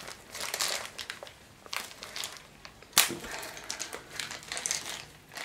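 Packaging of a pair of scooter stunt pegs being torn open and handled: irregular crinkling and crackling, with one sharp snap about three seconds in.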